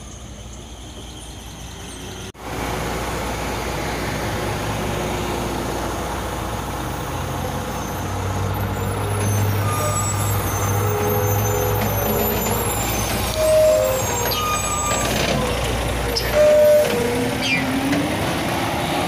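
Heavy truck engine running and big tyres rolling close by, a steady loud rumble that starts abruptly a couple of seconds in and builds slightly. Two brief high tones sound out over it about two-thirds of the way through and near the end.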